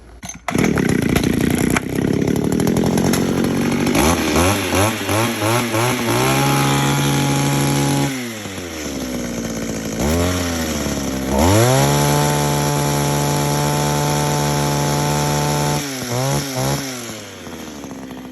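Small two-stroke engine pull-started, catching about half a second in, then revved up and down several times, held at high speed twice, and settling to an idle near the end. It is running on a new primer bulb and fuel lines, having not run at all with the old split bulb.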